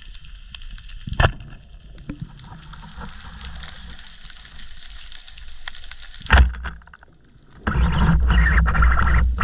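Water sounds on a spearfisher's camera: a steady hiss with a sharp knock about a second in and another near six seconds, then a loud, rough stretch of sloshing and bubbling from about eight seconds.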